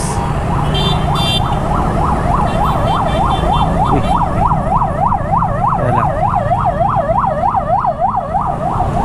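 An emergency vehicle's yelp siren, a fast rising-and-falling wail at about four to five sweeps a second. It starts a couple of seconds in and fades near the end. Underneath is the low running of the engines of the surrounding motorcycle traffic.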